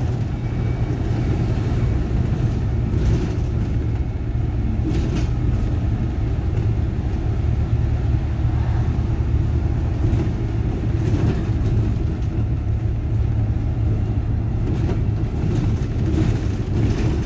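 City bus under way: a steady low engine drone with road rumble, and a few faint clicks or rattles.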